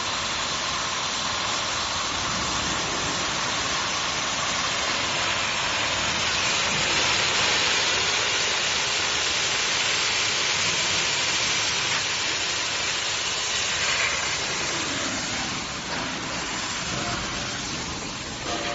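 Row of oxy-fuel cutting torches on a CNC gantry strip-cutting machine, cutting steel plate with a steady hiss of the gas jets, easing off somewhat in the last few seconds.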